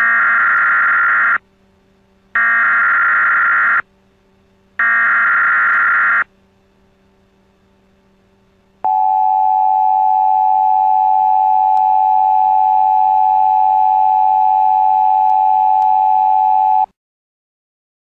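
Emergency alert broadcast signal: three screechy bursts of digital data tones, each about a second and a half long with a second's pause between them. After a gap of a couple of seconds, a single steady attention tone sounds for about eight seconds and cuts off.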